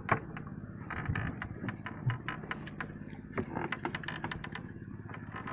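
Fishing reels being wound on jigging rods: many short, irregular mechanical clicks and rattles.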